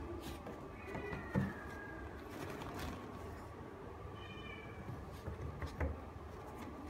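Miniature Pinscher puppy whining: a high, falling cry about a second in and a shorter high whimper a little after four seconds, with two thumps from the puppy being handled.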